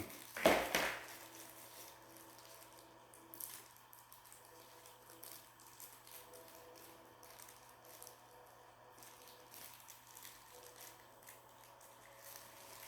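Faint scattered clicks and rustles of small plastic parts and packaging being handled, over a low steady hum. There is one louder brief sound about half a second in.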